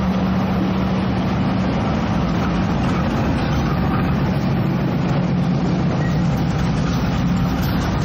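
Steady engine noise with a constant low hum.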